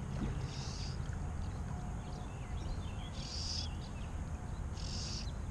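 Bird song in three short bursts over a steady low outdoor rush of water or wind.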